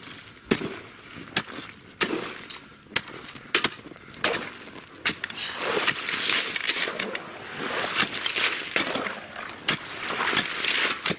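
Ice chisel striking river ice in repeated sharp knocks as a frozen-over hole is chipped open. In the second half a shovel scrapes and scoops the broken ice chunks in longer stretches of crunching.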